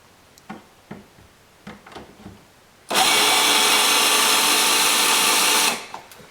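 Power drill with a screwdriver bit backing a cabinet screw out, its motor running at a steady pitch for about three seconds and then stopping. A few light knocks come before it as the bit is set in the screw.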